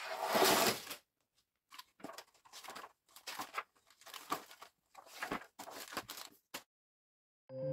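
A cardboard toy box being opened, its lid scraping off in one longer slide, followed by short bursts of rustling and crinkling as the paper instruction booklet and plastic bags of bricks are handled.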